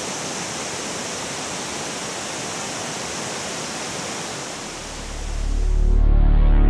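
A steady, even rushing noise, like running water. About two-thirds of the way through it fades out and music with a deep bass fades in.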